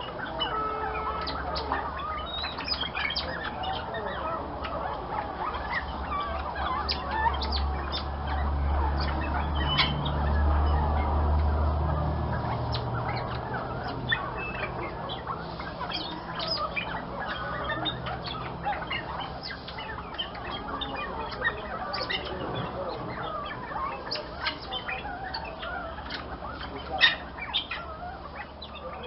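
Birds calling: many short squawks and chirps, with a low rumble from about six to twelve seconds in and one louder sharp call near the end.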